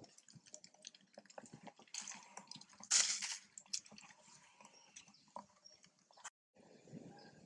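A macaque eating ripe mango: wet smacking and squishing with scattered small clicks, and a louder burst of noise about three seconds in.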